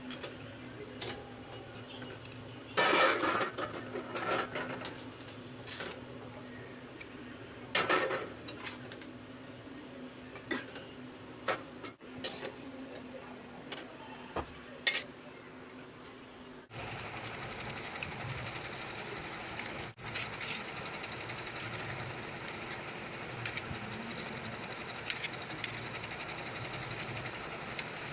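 Kitchen utensils clinking and clattering against pots and dishes: a string of sharp clatters, the loudest about three seconds and eight seconds in, over a low steady hum. Past the middle the sound changes abruptly to a steady, even hiss that continues.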